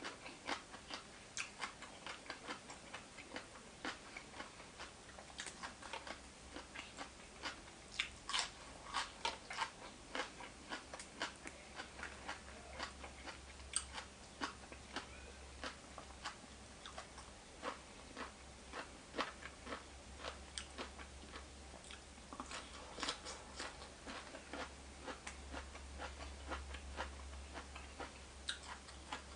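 Close-up chewing and crunching of mouthfuls of food, a steady run of irregular wet clicks and crisp crunches several times a second.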